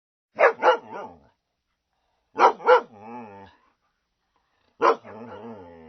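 A dog barking in three quick bursts of two or three barks about two seconds apart; the second and third bursts each trail off into a lower, drawn-out sound.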